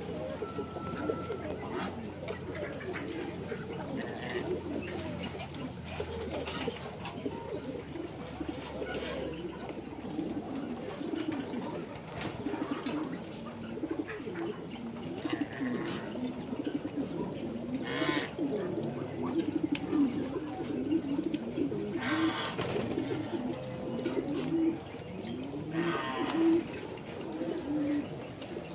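A flock of Muscovy ducks and geese calling. Many low, short calls overlap in a steady chatter, and a few louder calls stand out in the second half.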